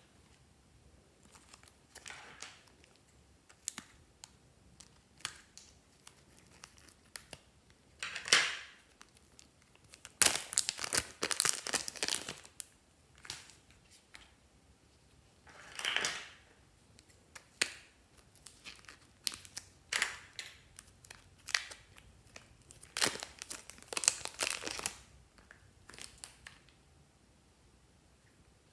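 Plastic packaging crinkling and tearing in irregular bursts as hands unwrap and handle blocks of soft modelling clay, with small clicks and rustles between.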